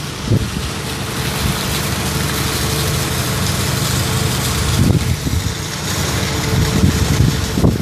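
Steady low engine hum under a constant loud hiss of wind across the microphone, with a few low thumps of wind buffeting near the end.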